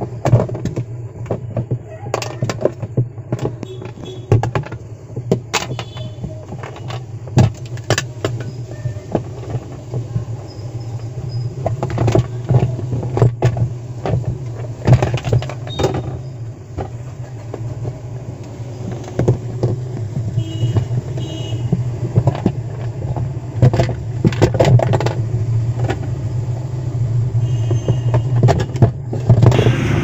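Screwdriver working the centre screw of a top-loading washing machine's plastic pulsator to unscrew it: irregular sharp metal clicks, knocks and scrapes, over a steady low hum.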